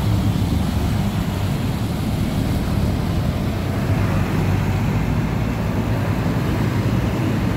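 Jammed city traffic, with the engines of large coach buses running close by: a steady low rumble.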